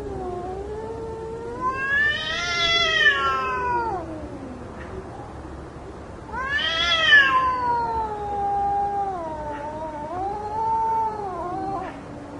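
Cats fighting: long, drawn-out yowls that waver and glide up and down in pitch, the caterwauling of a cat standoff. The cries swell loudest twice, about two seconds in and again around seven seconds in.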